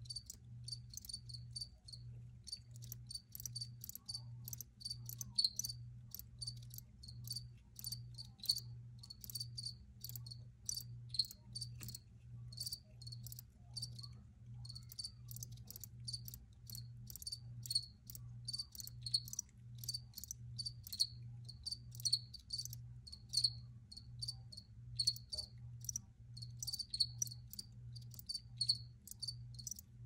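Several crickets chirping, with short high chirps that overlap at uneven intervals, over a faint low hum that pulses about three times every two seconds.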